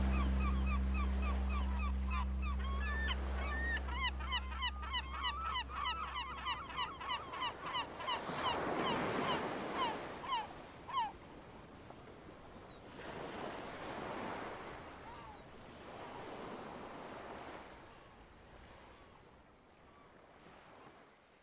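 The last held chord of a song fades out under a flock of birds calling rapidly, many short calls a second, which stop about eleven seconds in. Waves then wash onto a beach in several slow swells that fade out near the end.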